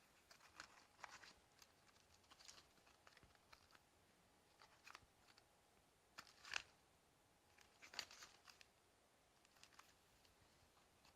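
Faint, scattered rustling and light clicks of packaging being handled, with two sharper clicks a little past the middle.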